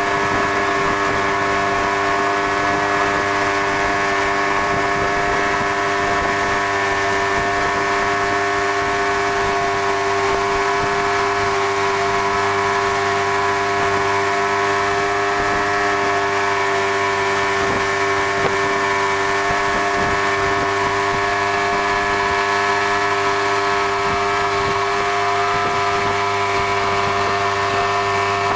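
Motorboat engine running steadily with the boat under way, a constant drone over a hiss of wind and water.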